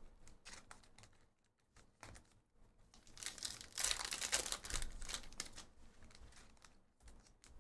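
Foil trading-card pack wrapper being torn open and crinkled by hand. It is loudest for about two seconds from roughly three seconds in, with lighter crinkles before and after.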